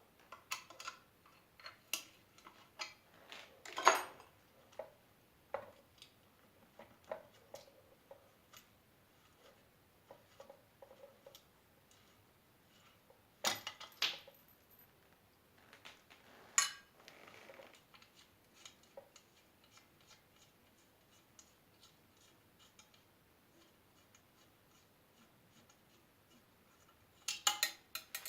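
Irregular clicks, taps and clinks of small metal parts being handled and set down. The louder clatters come about four seconds in, around thirteen to fourteen seconds, and in a short cluster near the end.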